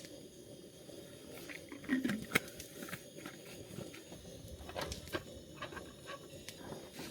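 Scattered light clicks and knocks of gear being handled, with a sharper click about two and a half seconds in and a brief low murmur just before it.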